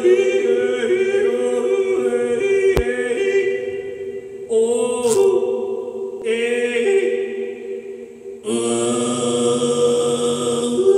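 Solo male voice in extended vocal technique, holding long sung notes in which several steady tones sound at once. The notes change about four and a half, six and a half and eight and a half seconds in. A single faint click comes near three seconds.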